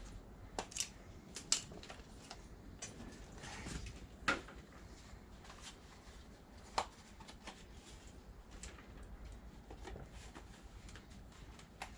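Scattered light clicks and knocks of hand work on small parts, a handful of separate sharp ones spread through, the loudest a little after four seconds in.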